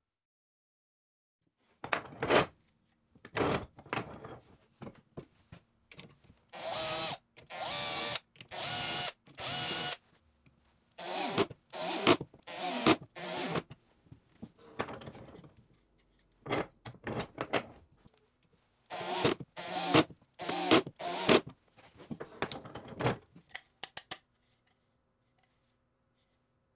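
Electric drill-driver driving screws to fasten an aluminium bar onto a plywood jig, in a series of short runs of about a second or less, separated by brief pauses.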